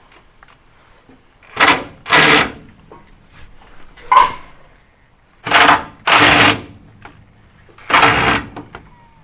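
Ratchet spanner clicking in six short, loud bursts of rapid rattling as a stubborn nut on the rear step mounting is worked loose.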